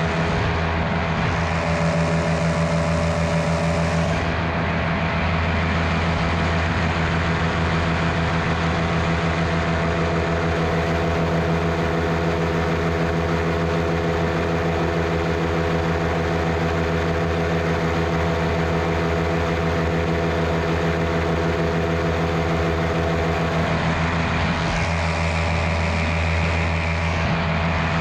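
Miniplane paramotor's Top 80 single-cylinder two-stroke engine and propeller running steadily under power in flight, its pitch holding even.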